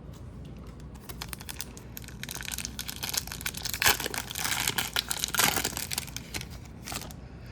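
Crinkling and tearing of a hockey card pack's wrapper as it is torn open, an irregular crackle that grows busier after a second or so and is loudest in the middle.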